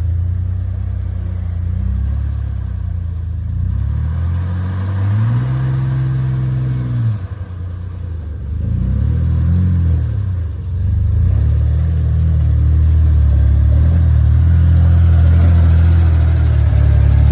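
Isuzu SUV's engine pulling at low speed over off-road obstacles, revving up and easing off twice, about five and nine seconds in, then running steadily under load.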